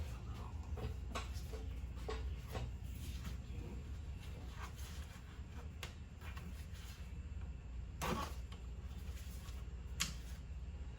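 Hands pulling the insulation pad and a hose off the top of an engine: scattered light clicks, knocks and rustles over a steady low hum, with a louder knock about eight seconds in and a sharp click about ten seconds in.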